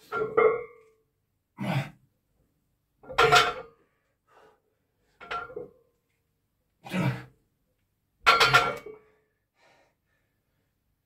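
Short, heavy, forceful breaths of a weightlifter straining through a set of heavy deadlifts, about one every second and a half.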